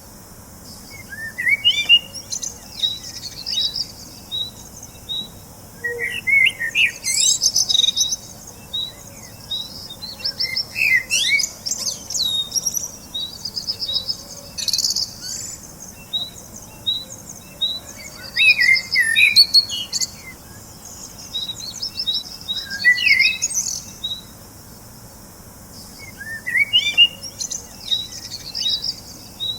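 Small birds chirping and twittering in repeated bursts of high song, with runs of short, evenly spaced chirps between the bursts.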